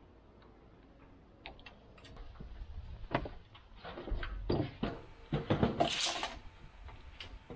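Scattered knocks and clatter of an aluminium stepladder being climbed down and moved, with a short scraping hiss about six seconds in.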